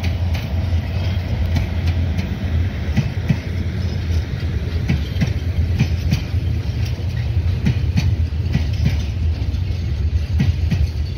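Freight train's open wagons rolling past: a steady low rumble with irregular clacks as the wheels cross rail joints.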